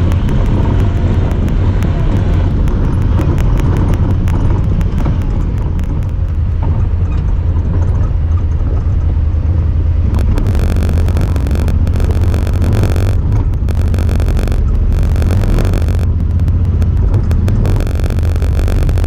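Honda Talon 1000R side-by-side's engine running with a heavy, steady rumble while driving off-road. From about halfway through, a buzzing high-pitched noise cuts in and out repeatedly, a fault of the recording camera itself.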